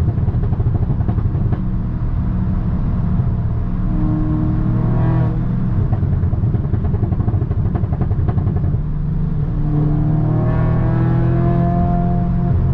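2017 Audi S3's turbocharged 2.0-litre four-cylinder engine and exhaust under acceleration, its pitch rising as it pulls up through the revs about four seconds in and again about ten seconds in.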